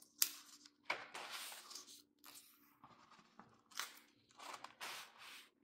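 Paper pages of a spiral-bound book being turned by hand: a series of quick paper rustles, several page turns in a row.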